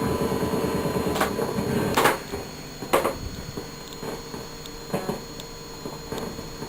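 Background noise from a Focusrite Scarlett 2i2 audio interface's output: a steady high-pitched electrical whine over hiss, the computer-induced noise being tested for. Sharp clicks come about five times. The noise drops noticeably after a loud click about two seconds in.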